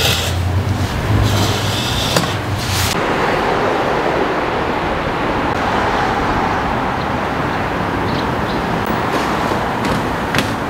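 Steady city street traffic noise, a continuous rush of passing vehicles. For the first three seconds or so a low hum with some hissing lies under it before the even street noise takes over.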